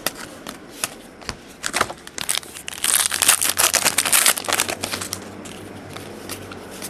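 Trading cards being handled and slid past one another, crisp clicks and rustling that come thickest in a rapid run around the middle.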